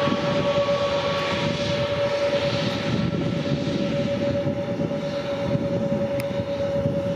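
Airbus A321neo jet engines running at taxi power as the airliner rolls by: a steady high whine over a continuous rushing noise.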